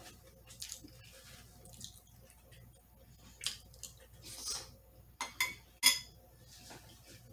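Metal spoon clinking and scraping against a glass bowl as macaroni is scooped. There are several sharp clinks in the second half, the loudest near the end, with close-up chewing and mouth sounds between them.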